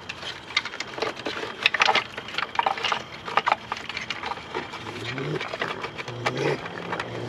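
Raccoons clawing and scrabbling at a small wooden toy castle: irregular scratches, clicks and light knocks of claws on wood.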